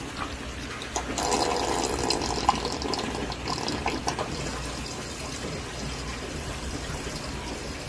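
Water running out of an aquaponics grow bed down its standpipe, with the bell siphon lifted off. It is loudest from about a second in to about four seconds, then goes on steadier and a little softer as the water level drops below the surface of the pebbles.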